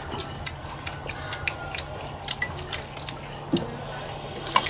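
Chopsticks and spoons clicking and clinking against bowls as people eat noodles, in scattered sharp taps with a louder ringing clink near the end. A short hiss comes just before that clink.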